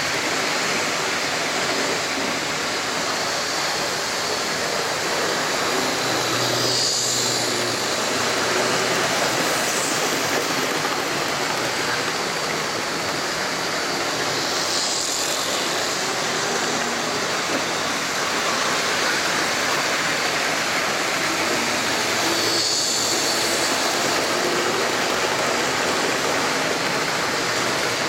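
OO gauge model trains running on the layout's track: a steady whirr and rattle of motors and wheels on rails. The sound swells briefly about every eight seconds.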